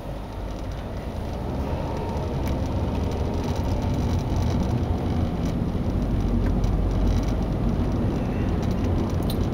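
Car driving, heard from inside the cabin: a steady low rumble of road and wind noise that grows louder over the first few seconds, then holds.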